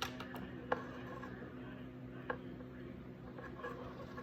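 Three sharp, small clicks from handling wires, crimp connectors and a crimping tool, over a low steady hum.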